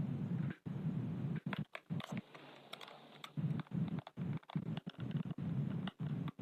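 Clicks and light knocks of tools and plastic housing parts being handled while a pressure washer is taken apart, over a low hum that drops out for about a second near the middle and cuts in and out later.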